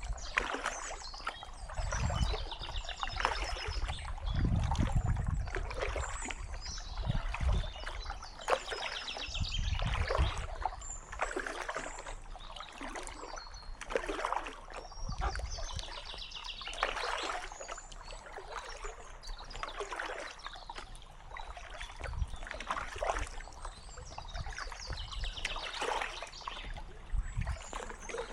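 Kayak paddle strokes dipping and splashing in calm water, about one every one and a half seconds, with occasional low thumps.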